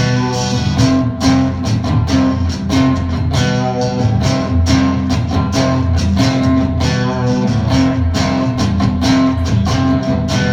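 A band playing a song's instrumental intro on strummed guitars over a low bass line, with a steady rhythm.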